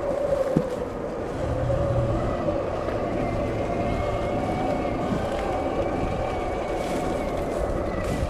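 Sur Ron electric dirt bike under way on a trail: a steady electric-motor whine from its belt drive over a continuous low rumble from the ride.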